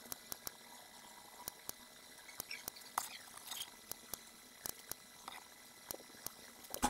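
Faint, irregular light taps and short scratchy strokes of a stylus on a writing tablet as numbers are underlined one after another, with a sharper tick near the end.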